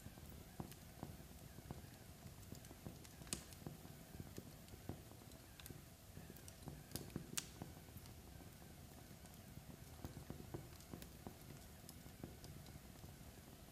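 Faint crackle of burning logs in a fireplace: irregular pops and snaps over a low rumble, with a few sharper pops about three seconds and seven seconds in.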